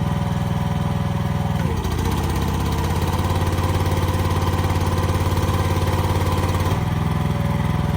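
Excavator engine running steadily. About two seconds in its note drops to a deeper, heavier sound, and it comes back up near the end, as the engine takes load while the hydraulic controls are worked.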